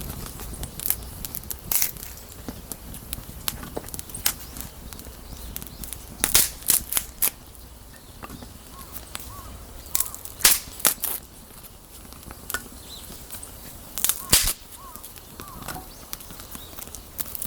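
Campfire wood crackling and popping: irregular sharp cracks over a low steady background, some coming in quick clusters of three or four.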